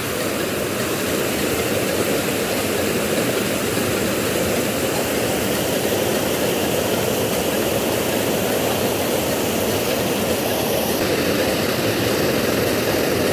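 A large waterfall's water crashing down, a steady, even rushing noise.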